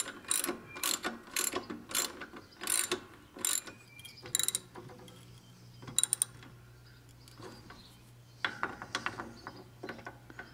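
Hand ratchet and socket clicking as it tightens the nut on a new lawn-tractor drive idler pulley: a steady run of clicks about twice a second for the first four seconds or so, then two short bursts of clicks later on.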